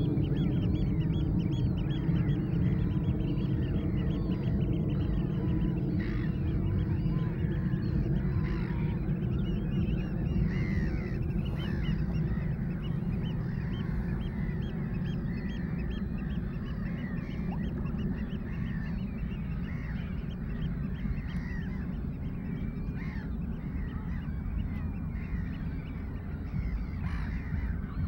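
A gull roost calling: many overlapping gull calls from several birds at once, over a steady low rumble.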